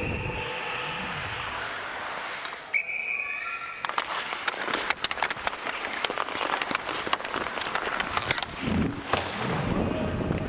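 Hockey skate blades scraping and carving on ice, then a fast run of sharp clicks and knocks from about four seconds in as the stick blade handles the puck.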